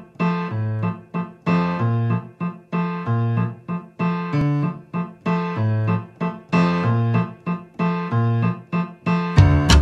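Song intro on a keyboard: a repeating pattern of struck chords and notes. Fuller accompaniment with percussion comes in near the end.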